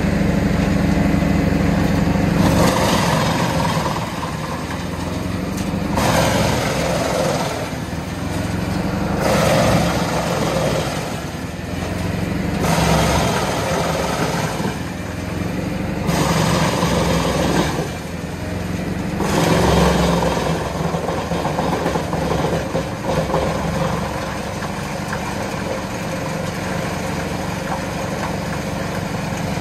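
Junkkari HJ500 tractor-driven wood chipper running off a Valtra T190's six-cylinder diesel, a steady engine hum under it. Every three seconds or so a louder rushing surge comes as a load of wood is fed in and chipped. The surges stop about two-thirds of the way through, and the machine runs on evenly.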